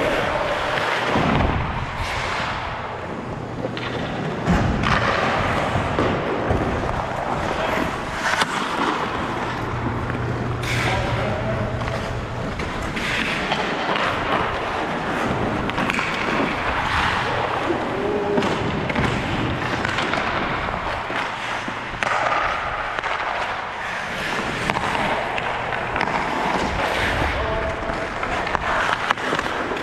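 Ice hockey game sounds in an echoing arena: skate blades scraping the ice, and sticks and puck clacking and thudding against sticks and boards in many sharp knocks, with a few short shouts from players over a steady low hum.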